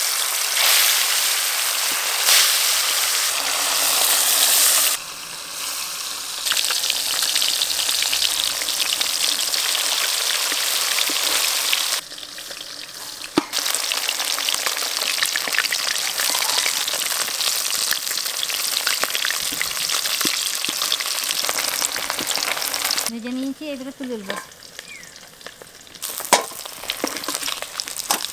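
Rupchanda (pomfret) fish pieces deep-frying in hot oil in a wok, a loud, steady sizzle. It dips in level a couple of times and turns quieter near the end as the fried pieces are lifted out.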